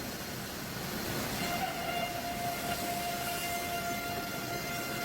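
Sawmill head saw and carriage machinery running, a steady noisy rumble with a high steady whine from the saw that comes in about a second and a half in.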